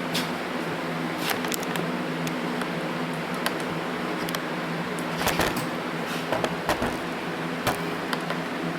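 Steady low mechanical hum, like a shop fan, with scattered small clicks and taps, several of them bunched together a little past the middle, from hand work on a Zenith carburetor's float setting.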